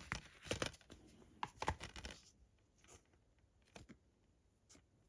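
Plastic Blu-ray keep case being handled and opened: a run of crackling and clicking for about two seconds, then a few faint clicks.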